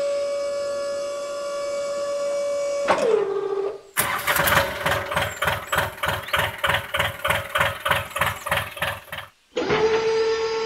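Small electric motor of a toy tractor and tipping trolley whining steadily, dropping in pitch and stopping about three seconds in. Then a tractor-engine chugging, about four beats a second, runs for some five seconds and cuts off suddenly before the motor whine starts again.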